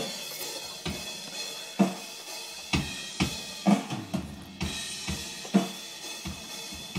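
A drum-heavy music track playing back over studio monitor speakers: kick drum, snare and cymbals, with a strong hit about once a second.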